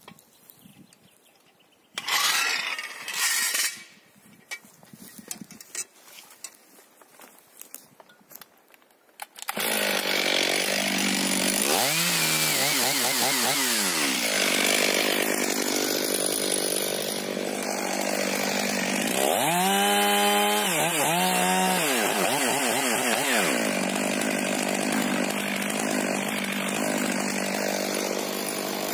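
A short loud burst of noise about two seconds in; then, about a third of the way in, a STIHL MS 500i fuel-injected chainsaw comes in suddenly and runs loud and steady, cutting into the base of a standing tree, its engine pitch swinging twice as it works the cut.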